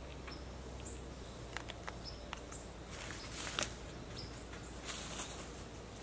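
Short high chirps from a small animal, repeating about once a second, over a low steady hum. A few soft clicks come near the middle, and brief rustles about three and five seconds in.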